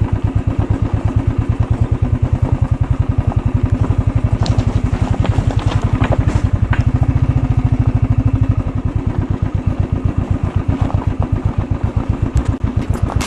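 Motorcycle engine running at low road speed on a rough off-road track, a steady fast beat of firing pulses that eases off a little past the middle. Scattered rattles and clicks a few seconds in.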